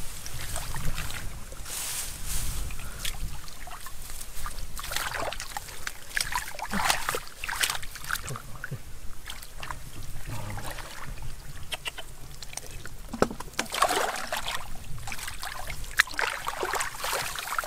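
Hands digging and groping through wet mud and shallow ditch water, with irregular squelches, small splashes and wet slaps.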